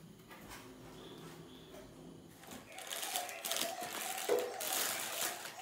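Plastic wrapping crinkling and rustling as wrapped mixer-jar lids are handled and pulled from a foam packing tray. It grows much louder and denser about halfway through.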